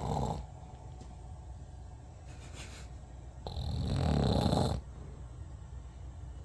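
Deep snoring in slow cycles: a snore trails off just after the start, a faint breath follows about two and a half seconds in, then one loud snore of just over a second about three and a half seconds in.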